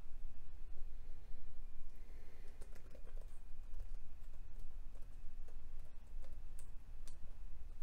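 A few scattered light clicks and taps on a laptop's keys or trackpad, over a low steady room hum.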